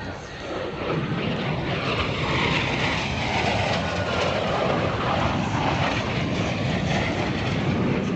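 Airplane engine noise as an aircraft flies past, swelling about a second in and then holding steady and loud.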